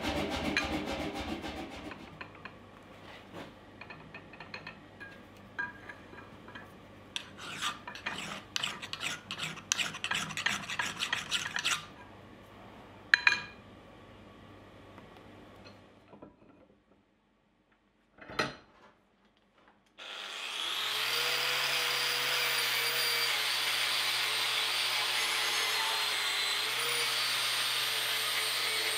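Angle grinder spinning up about two-thirds of the way in and running at speed on the forged steel candle-holder blank, its whine wavering slightly as it bites. Before that, rapid rattling, then light metal clinks and scraping as the steel piece is handled on the anvil, with one sharp knock, then a few seconds of near quiet.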